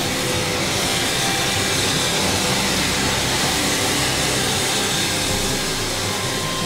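Steam locomotive hissing steam in a steady rush, without a break.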